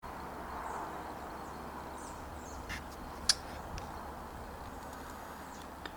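Faint, scattered calls from a large flock of migrating birds passing overhead, over a steady background hiss. One sharper, louder note comes about three seconds in.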